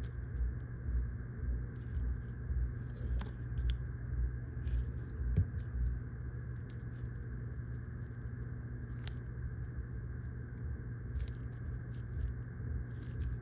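Faint small clicks and scratching of a repair tool working at a phone screen's softened adhesive, over a steady low hum.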